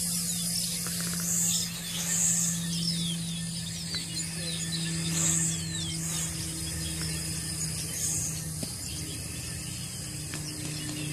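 LaTrax Alias quadcopter's small electric motors and propellers whining steadily in flight, the pitch stepping slightly lower about eight and a half seconds in as the throttle changes.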